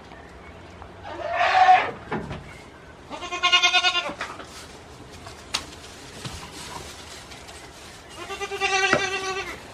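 Goats bleating: three separate bleats of about a second each, the second and third with a wavering pitch. A sharp click sounds between the second and third.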